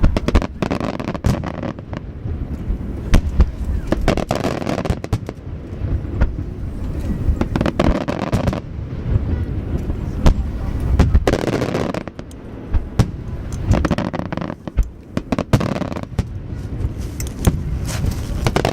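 A barrage of large 10-inch (shakudama) aerial firework shells bursting in rapid succession: dense booms and sharp cracks over a continuous rumble, with swells of crackling every few seconds.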